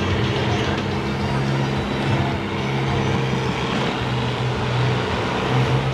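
Combine harvester engines idling, a steady low hum with no impacts.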